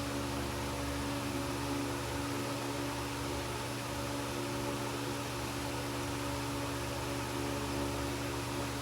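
A steady machine hum with an even hiss over it, unchanging throughout.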